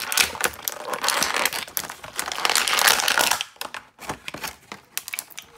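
Clear plastic blister tray crinkling and crackling as an action figure is worked out of it, for about three and a half seconds. After that come a few light clicks.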